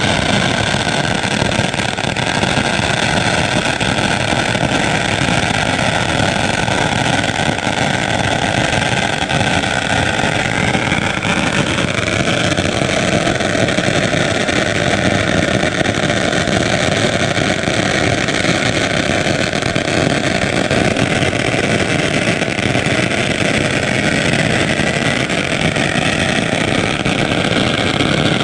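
A long pagara firecracker string burning along the street, its firecrackers going off so fast the bangs blur into one steady, loud crackle.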